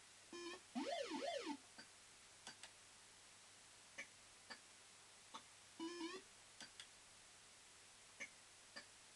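Barcrest Super Lineup fruit machine's electronic sound effects: about half a second in, a quick run of stepped beeps goes into warbling tones that glide up and down, and a shorter beep run comes around six seconds. Sharp single clicks sound from the machine every half second to a second.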